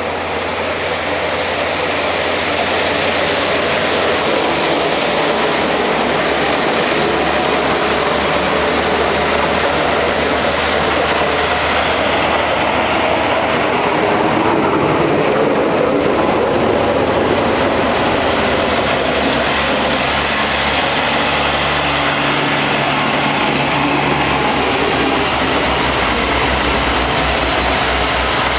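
A pack of snow plow trucks working the road: engines running and plow blades scraping and grinding over snow and pavement in a steady, loud rumble, with the low engine hum shifting as the trucks pass.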